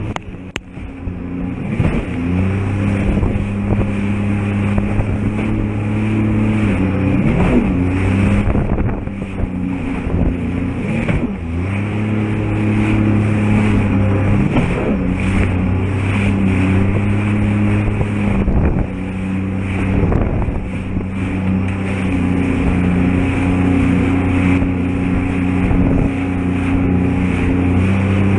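Sea-Doo GTR-X 230 jet ski's supercharged Rotax three-cylinder engine running hard over open-sea swells, heard from on board. The engine note holds steady, then jumps up or drops back every few seconds in quick rev changes, with hull slaps and spray knocks throughout and a brief dip in loudness near the start.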